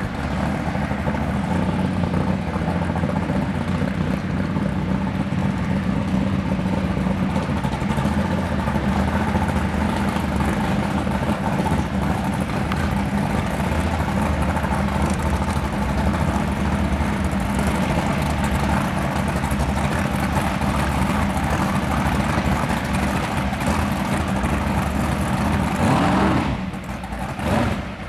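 Supercharged 820-cubic-inch V8 of a 2000-horsepower 1928 Ford rat rod drag car running steadily at idle. Near the end the sound drops briefly, then revs rise as the car pulls forward.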